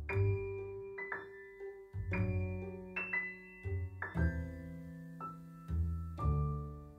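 Background music led by a piano, with notes struck about once a second over low bass notes.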